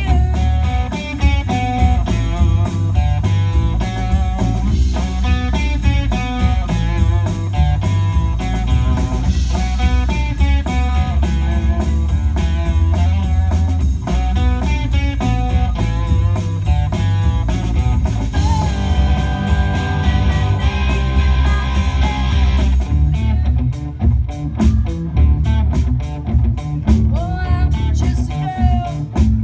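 Live rock band playing an instrumental passage without vocals: electric guitars through Marshall amplifiers over bass and drums, with a busy melodic guitar line. About 23 seconds in the cymbals drop out and the playing thins to sparser guitar notes and drum hits.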